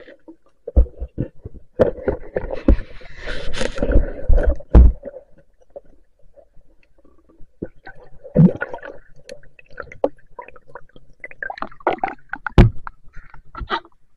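Heard underwater: a string of sharp knocks and thumps with bursts of gurgling, churning water, from a spear shaft and a speared fish being handled among river rocks. The churning is densest a couple of seconds in, with single heavy thumps about eight and twelve and a half seconds in.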